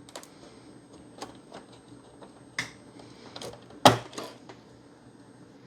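Scattered small clicks and knocks of a hard drive's power and SATA cable connectors being unplugged and the drive handled, with a sharper click a little under four seconds in.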